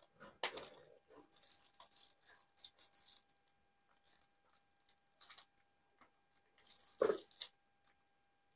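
Thin plastic takeaway bag crinkling and rustling in short, irregular bursts as fingers work at its knotted top to untie it, with a louder crinkle about seven seconds in.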